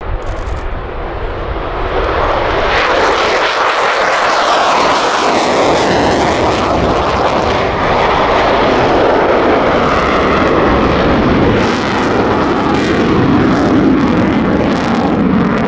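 F-16 Fighting Falcon's single jet engine, ear-splitting loud as the fighter passes and climbs away: a whine falling in pitch about three seconds in, then a steady rumble with crackling in the last few seconds.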